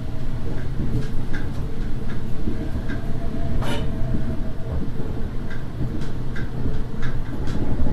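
Diesel railcar running along the track: a steady low rumble of engine and wheels, with irregular clicks of the wheels over the rails and one sharper clack a little before halfway.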